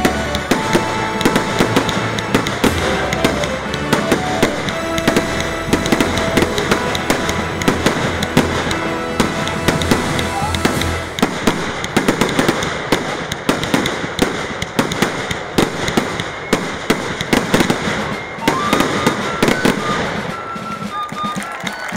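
Fireworks going off in a rapid, near-continuous barrage of bangs and crackles over music. The bursts thin out about three-quarters of the way through, leaving the music more prominent.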